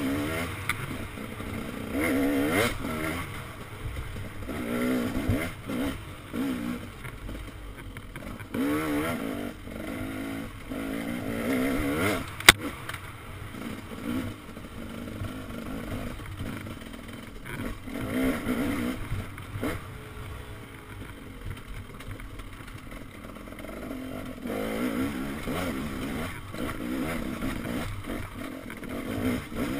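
Dirt bike engine revving up and down with the throttle as it is ridden hard over a rough trail, its pitch rising and falling every second or two. A single sharp crack about twelve seconds in.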